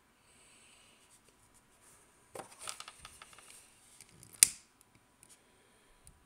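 Handling sounds of a braided cord and a disposable lighter: a run of small rustles and clicks, then one sharp click about four seconds in as the lighter is struck and lights.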